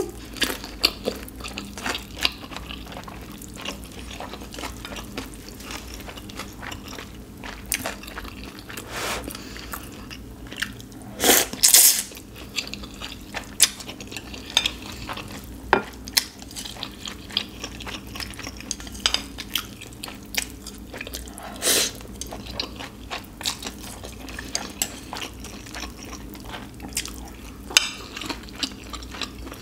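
Close-up eating sounds: chewing and slurping of ramen noodles, with many small clicks of chopsticks against bowls and plates. There are louder noisy bursts about eleven seconds in and again about twenty-two seconds in.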